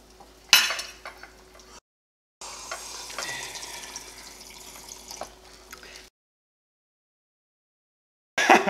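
Dishes and cutlery clinking and clattering at a kitchen counter, with a loud clatter about half a second in. The sound drops out completely twice, once briefly and once for about two seconds, and a loud burst comes just before the end.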